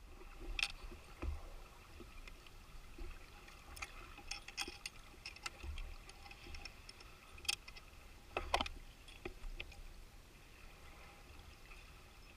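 Underwater sound through a camera housing: scattered sharp clicks and knocks, the loudest about eight and a half seconds in, over a low rumble of water and a faint steady hum, while a swimmer secures the submersible's sample basket during recovery at the surface.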